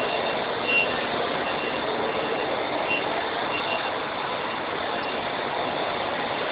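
Steady running noise of diesel coaches at a bus terminal bay, with a faint short high beep repeating every second or so through the first few seconds.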